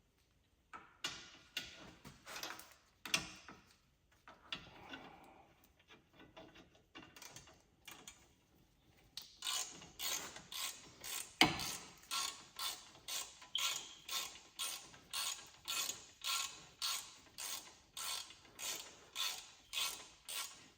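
Harbor Freight Icon G2 ratchet clicking as it is worked back and forth. The strokes are irregular at first, then from about nine seconds in settle into a steady run of about two strokes a second, with one louder knock partway through.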